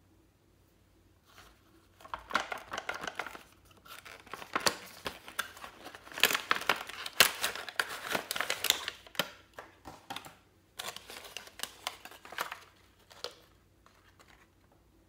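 Cardboard box and plastic blister tray of a toy makeup set being handled and unpacked: crackling, crinkling plastic and cardboard in irregular clusters, loudest in the middle, with a short pause about ten seconds in.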